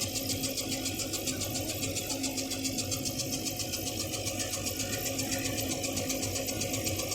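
Small 6040 CO2 laser engraver raster engraving: the stepper-driven head shuttles back and forth in a quick, even pulsing rhythm over a steady machine hum.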